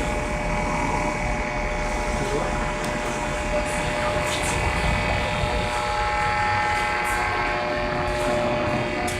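Flicker from a lighting store's lamps and their power supplies, picked up by a small solar panel fed into an audio amplifier: a steady electrical buzzing hum made of several held tones over a rough low rumble.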